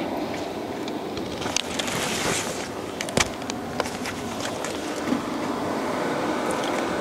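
Steady din of a large event hall, with a cluster of sharp clicks and clinks from about one and a half to four seconds in and another near five seconds, as tongs and utensils are handled at a skillet.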